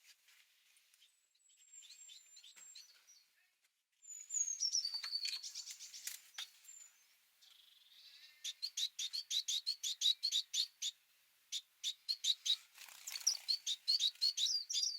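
Small finches chirping and calling: faint high calls at first, then from about four seconds in a busy stretch of sharp, high chirps and short trills, with quick runs of repeated notes.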